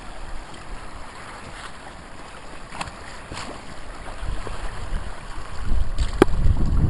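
Wind buffeting the microphone, stronger in the second half, with a few sharp snaps and clicks of dry reeds and sticks underfoot; the loudest snap comes near the end.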